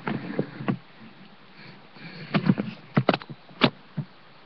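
Handling noise: irregular knocks, bumps and rustles as the camera is picked up and moved about.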